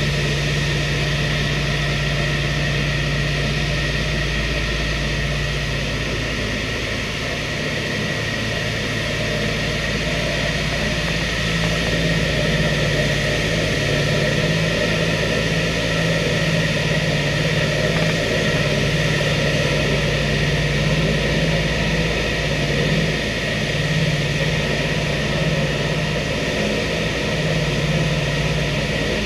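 The B-25 Mitchell bomber's twin Wright R-2600 Cyclone radial engines and propellers droning in flight, heard from inside the fuselage. A low, unevenly pulsing throb runs under a dense roar and rises slightly in pitch about ten seconds in.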